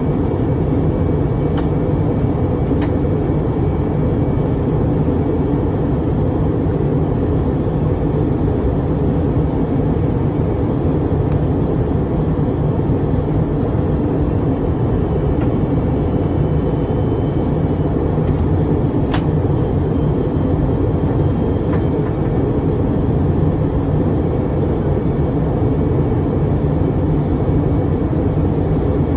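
Steady low roar inside the cabin of an Airbus A321-231 in descent: rushing air and its IAE V2500 engines, with a few faint clicks.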